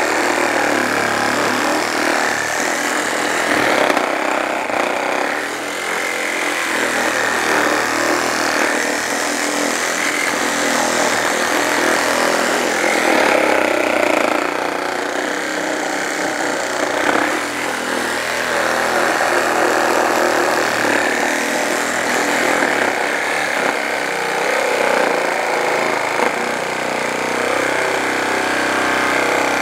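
JLD cordless reciprocating saw running without a break, its blade cutting through a thick block of wood.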